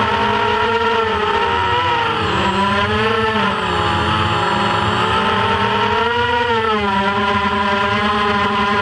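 FPV quadcopter's motors and propellers whining, heard from its onboard camera, the pitch dipping and rising again several times as the throttle changes.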